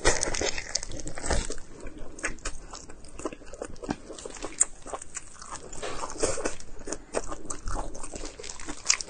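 Close-miked eating: wet chewing and biting with irregular clicking mouth sounds, loudest in the first second or so.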